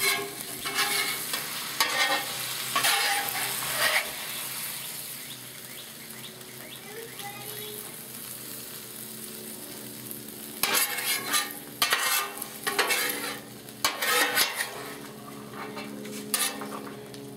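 Metal spatula scraping across the hot steel flat top of a Blackstone griddle, with sizzling from the hot surface. The scraping comes in bursts for the first few seconds and again through the second half, with a softer steady sizzle between.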